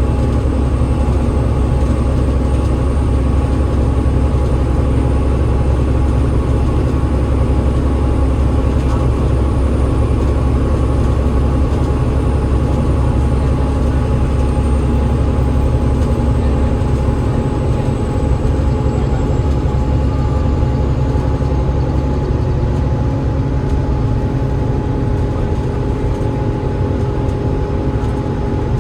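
Alexander Dennis Enviro500 MMC double-decker bus running steadily under way: the deep rumble of its Cummins ISL8.9 diesel engine and ZF EcoLife automatic driveline, with steady whine tones on top. A high whine drops slightly and fades about two-thirds of the way through.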